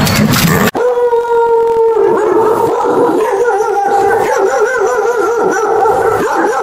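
Under a second in, a short stretch of rough noise cuts off and a dog begins one long howl. The howl holds a steady pitch for about a second, then wavers up and down in pitch.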